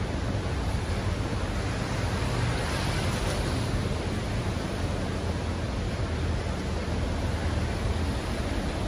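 Steady rushing noise with a low rumble underneath, unchanging, with no distinct event.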